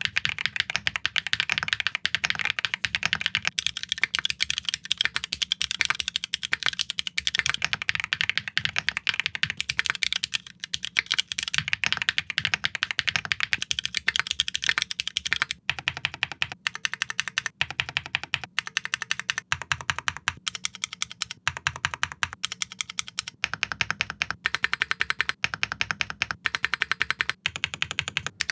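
Fast, continuous typing on a Tars T1 aluminum mechanical keyboard with Tars × Kailh linear switches, many clicks a second, on a stiff screwed-in standoff mount. There is a brief pause about 15 seconds in.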